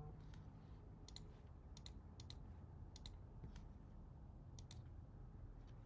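Computer mouse clicking faintly: a handful of quick clicks, most of them in close pairs, spaced a second or so apart over a low steady hum.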